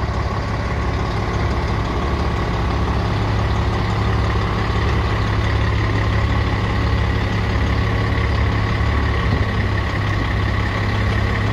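Diesel engine of a MAN crane truck running steadily, powering the hydraulics of its Palfinger loader crane, a constant low hum with a steady higher whine over it.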